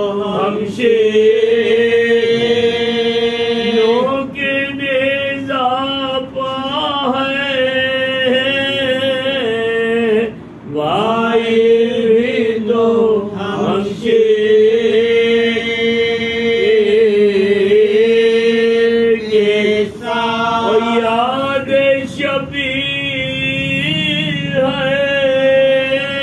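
Men's voices chanting a Shia Muharram lament for Karbala, unaccompanied, in long held notes that bend and waver, with short breaths between phrases.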